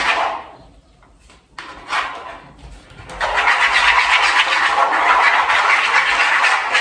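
A comb handle stirring a thick mix of hair dye and conditioning cream: a short knock about two seconds in, then a steady, rapid scraping and squelching from about three seconds on.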